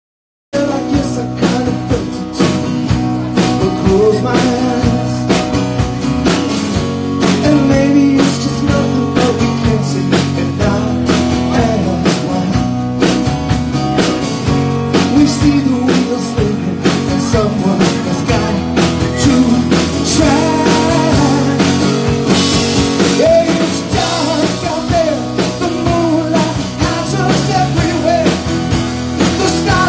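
Live rock band playing: strummed acoustic guitar and a drum kit keeping a steady beat, with a man singing lead. The sound cuts in about half a second in.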